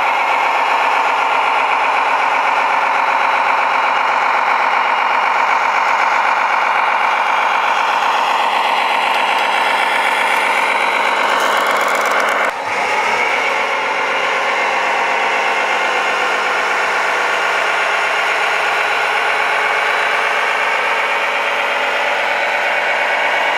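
Radio-controlled Mack dump truck running, a steady, loud engine-like drone with a few rising and falling changes in pitch as it changes speed. There is a brief drop in level about twelve and a half seconds in.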